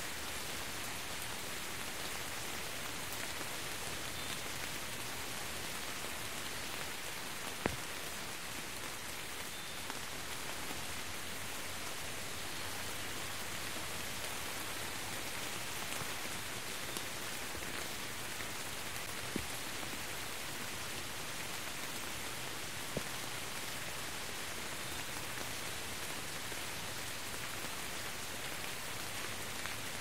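Steady rain: an even hiss with a few sharper drop impacts now and then, the loudest about a quarter of the way in.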